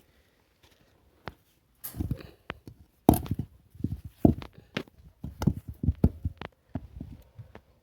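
Irregular footsteps and knocks, starting about two seconds in after a near-silent start.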